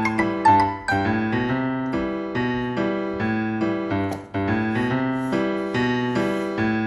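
Background music played on electric piano: a steady run of notes and chords at an even pace.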